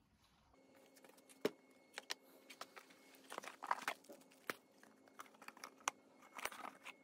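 Plastic wrap around a stack of sanding discs crinkling as it is handled, with scattered sharp taps and knocks of things being put down on a workbench.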